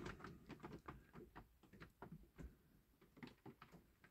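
Near silence, with faint scattered small clicks and taps from handling small parts, a glue bottle and a toy's metal chassis.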